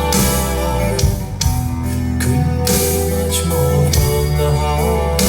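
Recorded rock ballad played back through a PA loudspeaker set, in an instrumental passage without vocals: guitar lines over a steady bass, with a few drum hits.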